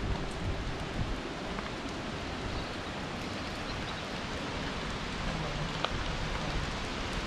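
Steady rushing of the Dobra river's water at the dam, an even noise throughout, with a faint click about three quarters of the way in.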